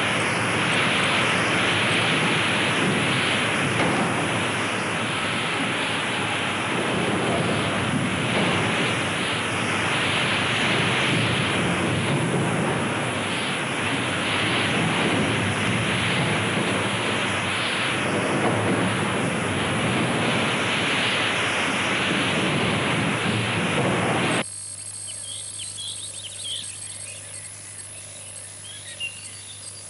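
Heavy rushing storm noise of rain and wind, swelling and easing every couple of seconds. It cuts off suddenly about 24 seconds in, and faint chirping follows.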